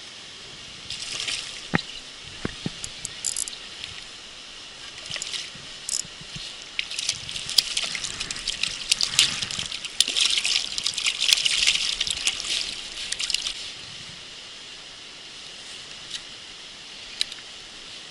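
Water splashing and sloshing in two bouts, a short one about a second in and a longer, louder one from about seven to thirteen seconds, over a steady outdoor background.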